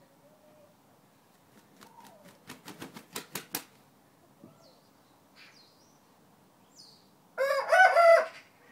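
Thai rooster flapping its wings in a quick run of about eight beats that grow louder. A few seconds later it gives a short, loud crow in a few broken notes.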